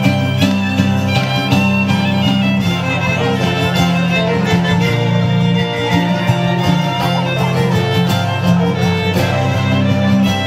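Folk band playing a lively instrumental tune, the fiddle carrying the melody over held chords and a strong, steady bass.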